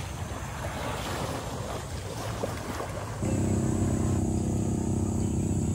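Small waves washing onto a sandy beach, with wind on the microphone. About three seconds in, the sound cuts abruptly to a louder steady low hum.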